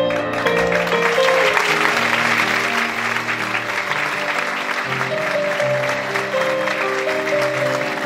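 An audience applauding over instrumental background music; the clapping is strongest in the first few seconds and then thins out while the music plays on.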